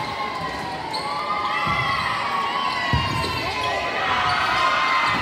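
Sneakers squeaking on a hardwood gym floor over players' voices in a large echoing gym, with two low thumps about two and three seconds in.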